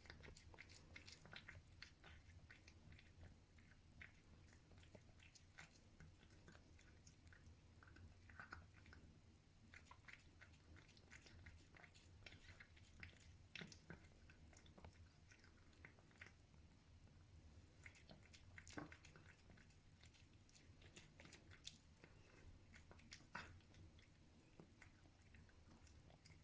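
A cat chewing its food, faint irregular clicks and smacks from its mouth over a steady low hum.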